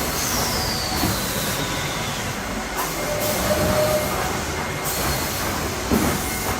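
Sawmill machinery running loud as a log is squared into a cant by the chipping canter's rotating cutter heads: a dense mechanical clatter and grind. Near the start a high squeal slides down in pitch over about two seconds.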